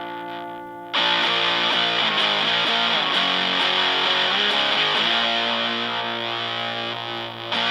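Fender Stratocaster played through a Distortion Bender fuzz/distortion pedal into a Fender Blues Junior amp: distorted electric guitar chords and a short riff. A chord is struck hard about a second in, the notes change through the middle, and another chord is struck near the end.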